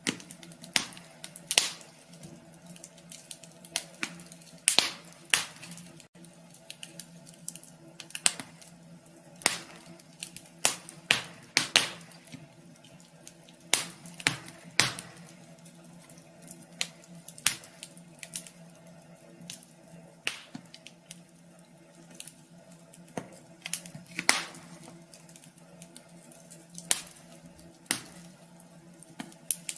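Wood fire crackling in a wood stove: irregular sharp pops and snaps, some in quick clusters, over a faint steady hum.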